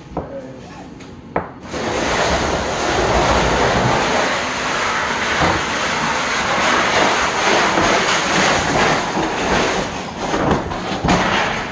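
A loud, steady rushing noise switches on abruptly about two seconds in and carries on, with a faint high whine over it; a couple of short clicks come before it.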